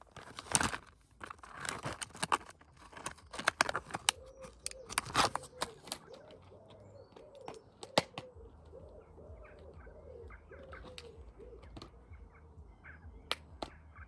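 Clear plastic tub clicking, crinkling and knocking against concrete as it is handled, mostly in the first half. From about halfway, a bird cooing softly over and over in the background.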